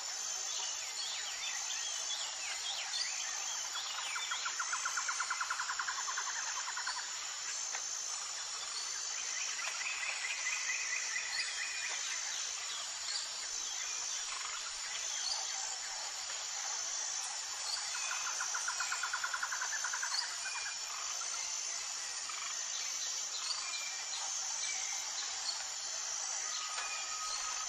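Steady high-pitched chirring of an insect chorus, with a rapid trilling call rising over it three times.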